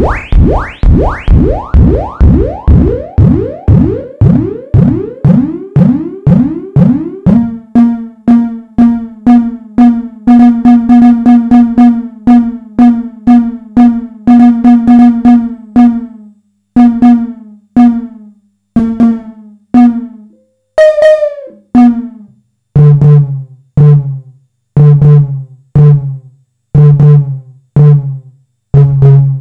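Simmons SDS7 hybrid analog/digital drum module's snare voice being triggered over and over while it is programmed, about three hits a second. At first each hit bends upward in pitch with the analog bend-up setting; after about seven seconds the hits settle on a steady pitch with some quicker runs, and near the end they drop to a lower pitch.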